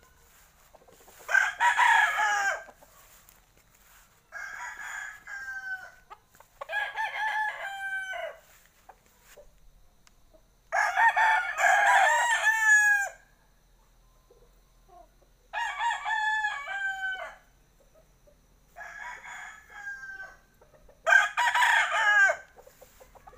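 Gamefowl roosters crowing, seven crows of one to two seconds each. Three loud crows come about a second in, about eleven seconds in and near the end, with quieter crows between them, each call dropping in pitch at its end.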